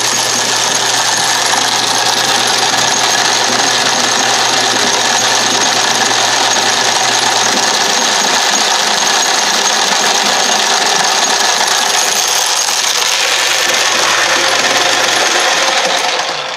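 Craftsman Atlas 12-inch lathe running on its electric motor, its freshly rebuilt, heavily oiled change-gear train and quick-change gearbox making a loud, steady gear noise, crazy noisy while breaking in. Near the end the motor hum stops and the gear noise dies away within about a second as the machine is switched off.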